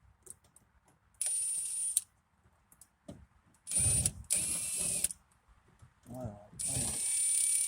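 Power screwdriver spinning in three short bursts, backing out door-panel screws. The whine sags slightly as each burst ends.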